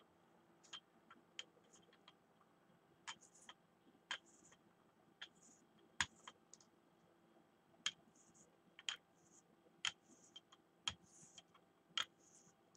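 Faint, irregular clicks and taps, about one a second, against quiet room tone, with one sharper tap about halfway through.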